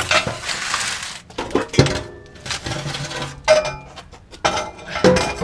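Loose metal parts clanking and clinking: several separate ringing knocks, with a rush of noise in the first second.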